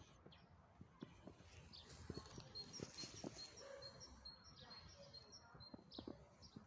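Faint bird song: a quick run of short, high chirps, about three a second, starting around two seconds in and lasting about four seconds. Soft rustles and clicks sound underneath.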